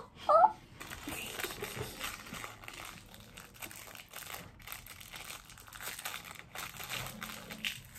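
A short pitched vocal exclamation right at the start. Then the steady, busy crinkling of a thin plastic packet as a mochi squishy toy is unwrapped by hand.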